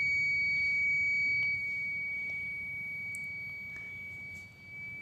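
Buzzer of a homemade laser tripwire alarm sounding one steady high-pitched tone, a little louder in the first second and a half. It was triggered by breaking the laser beam to the LDR, and its charged capacitors keep it sounding.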